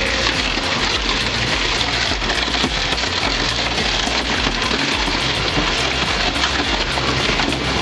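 Slow-speed industrial shredder running and grinding through scrap, a steady dense mechanical noise with no pauses.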